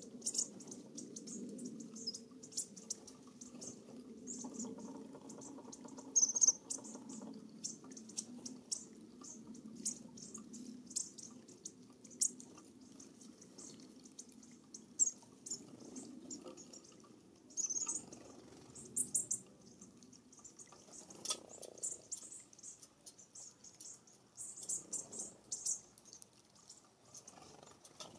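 A flock of American bushtits giving many short, high, thin contact calls, scattered irregularly and sometimes in quick clusters, over a faint low steady rumble.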